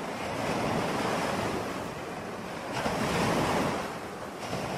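Sea surf washing up a sandy beach, two swells of breaking waves rising and falling, the louder one about three seconds in.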